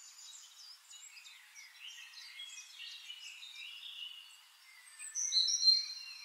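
Birds chirping and singing, many short high calls overlapping, with a louder burst of calls about five seconds in.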